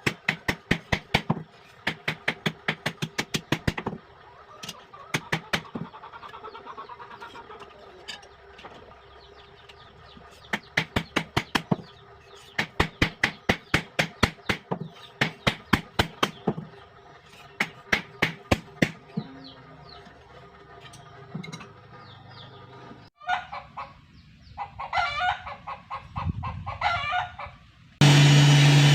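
Hammer blows on steel at the anvil while forging a knife blade, in quick runs of about four ringing strikes a second with short pauses between runs. Near the end a chicken clucks several times, and a loud steady machine starts up just before the close.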